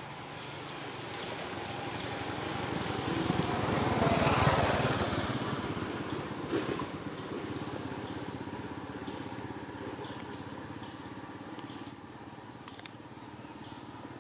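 Engine of a passing motor vehicle, growing louder to a peak about four seconds in, then fading away over the following seconds.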